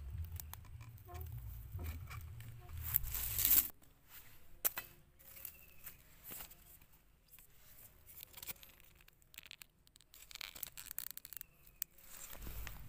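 Irregular scraping, rustling and clicking handling noises, with a low rumble under them for the first few seconds that then stops.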